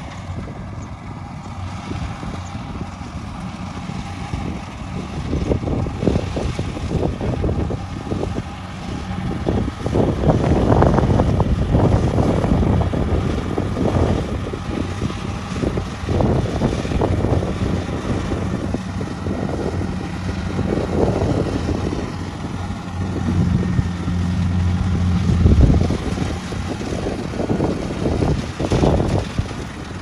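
Kubota DC-70 rice combine harvester's diesel engine running steadily as the machine cuts rice, with wind buffeting the microphone in irregular gusts.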